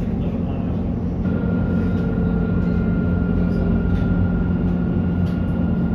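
Running noise heard from inside an Alstom Citadis tram in motion: a steady low hum under a rushing rumble, with a thin steady whine setting in about a second in.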